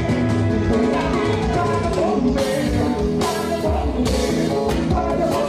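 A carnival bloco band playing steadily: drums keep a beat under a pitched melody line.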